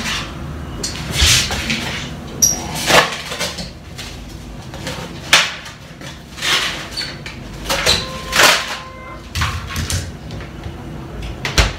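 The freezer compartment of a small two-door fridge is opened and searched. Items are knocked and shuffled about inside in a string of separate knocks and rustles, with a heavier thump near the end.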